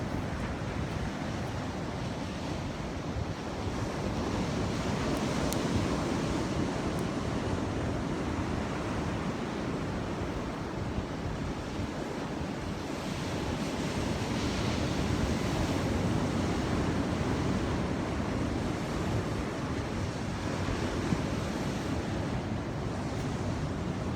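Ocean surf: waves breaking and washing in a continuous rush that swells louder twice, with wind on the microphone.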